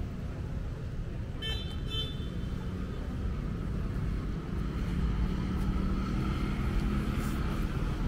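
Beach-road traffic: a steady low rumble of cars and motorbikes going by. Two brief high-pitched notes sound about a second and a half in, and a vehicle's engine hum grows louder over the second half.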